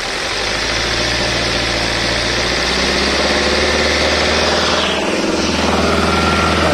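Hyundai Grand i10 engine held at raised revs, with the running note shifting about five seconds in. The mechanic hears a knock in it that he suspects comes from a worn or displaced connecting-rod bearing shell.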